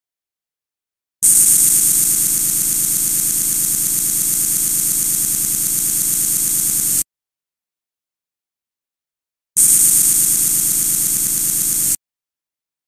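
CNC lathe simulator's machine-motion sound effect, as the simulated axes travel: a steady, loud hiss with a low hum under it that starts abruptly about a second in, runs about six seconds and cuts off, then comes back for about two and a half seconds near the end.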